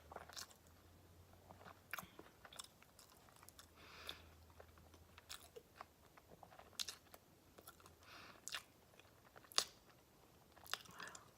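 Faint chewing of a last mouthful of sandwich, with scattered soft mouth clicks and smacks.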